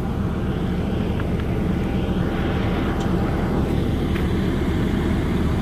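Diesel engine of heavy construction machinery running steadily: a continuous low drone.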